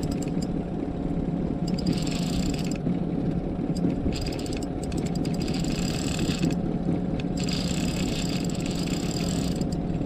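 Boat's outboard motor running as a steady low hum. Over it the spinning reel clicks in four stretches of a second or two each, as a big catfish is played on the line.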